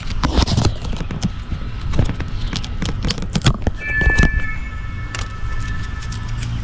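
Light clicks and rattles of a plastic Blink doorbell camera being handled at its wall mounting plate, over background music. A couple of steady high tones come in about four seconds in.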